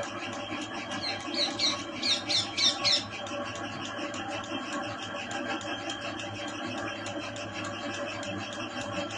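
Milking machine running on a cow: a steady, fast, even ticking from the pulsator over a constant hum. From about one to three seconds in, a short run of high, rising squeaks is the loudest sound.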